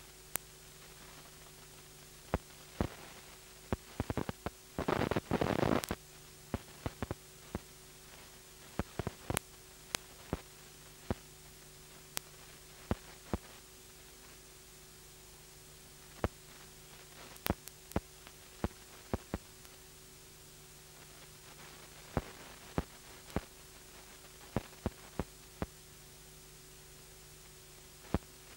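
Steady recording hiss with a low electrical hum, broken by scattered sharp clicks and crackles, with a louder rush of noise about five seconds in.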